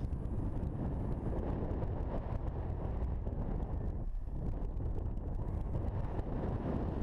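Wind buffeting the microphone outdoors: a steady low rumble with no clear motor whine, easing briefly about four seconds in.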